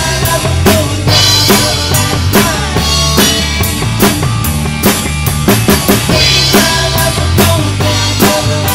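Live rock band playing, driven by a drum kit: bass drum, snare and cymbals keep a steady beat over low bass notes and electric guitar.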